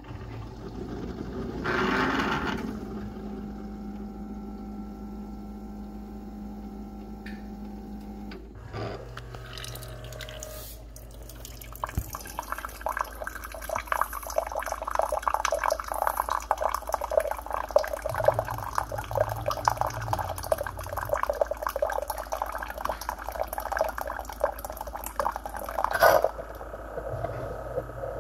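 Keurig single-serve brewer running a brew cycle: a steady machine hum for the first several seconds, then from about twelve seconds in water spurting and splashing into a glass measuring cup with crackling sputters. A sharp burst near the end, after which a quieter hiss remains.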